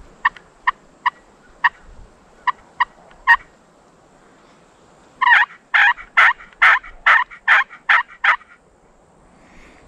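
Push-button turkey call worked by hand: about eight short, sharp clucks in the first three and a half seconds, then after a pause a louder series of about eight yelps in a steady rhythm.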